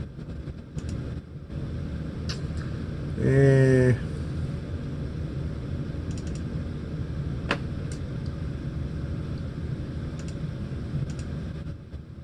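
Steady low rumble of room noise with a few light clicks. About three seconds in, a person's voice makes a short wavering hum lasting under a second, the loudest sound here.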